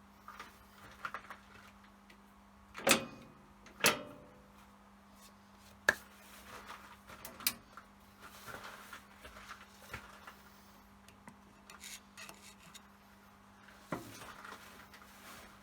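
Sharp knocks and clicks of tools and parts being handled at a lathe, the loudest two about three and four seconds in, over a steady low hum.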